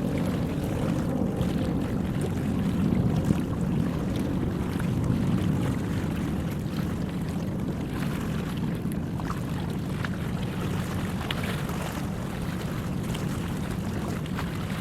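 Workboat's engine running with a steady low rumble as it heads out of the harbour, with some wind on the microphone.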